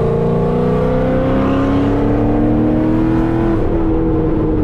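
Corvette V8 engine accelerating, heard from inside the cabin, its pitch rising steadily, with a gear change about three and a half seconds in.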